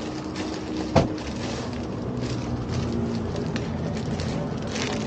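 Steady low rumble of road traffic with a crackly hiss over it and faint engine hum, and one sharp knock about a second in.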